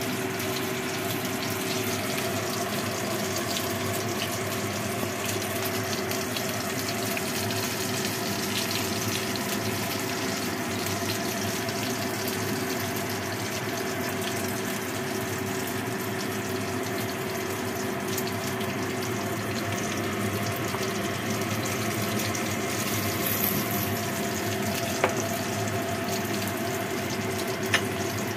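Steady rushing, bubbling noise of soup boiling hard in a glass pot on a gas stove, over a steady low hum, with two small clicks near the end.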